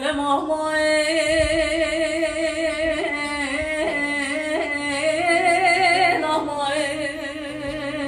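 A woman singing a Turkish uzun hava in a plaintive voice, drawing out long held notes with a strong wavering vibrato and slow melismatic turns, accompanied by a bağlama (long-necked saz).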